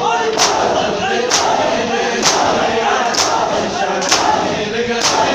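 Matam: a large crowd of men strike their bare chests in unison, a sharp collective slap about once a second, six times, over the crowd's steady chanting of a noha.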